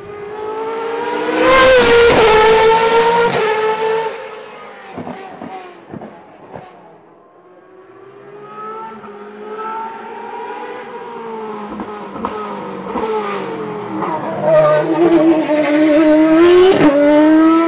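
Racing car engines at high revs through hairpin bends. One car passes loudly about two seconds in, its note stepping down with downshifts and a few sharp cracks as it fades. Another builds up and revs hard through the bend near the end, its pitch climbing in steps with upshifts.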